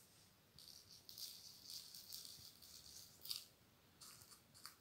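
Faint dry rustling and scratching of fingers pressing loose tea leaves onto glued paper, with a sharper crackle about three seconds in.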